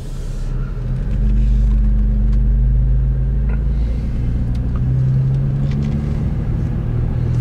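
Car engine running with road rumble, heard from inside the cabin while driving; the low hum gets louder about a second in and then holds steady.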